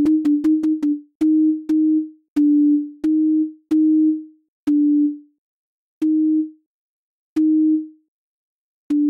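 Synthesized sine-tone beeps alternating between two close pitches in a high-low-high pattern, slowing from a quick run to about one beep every second and a half. Each beep begins with a click.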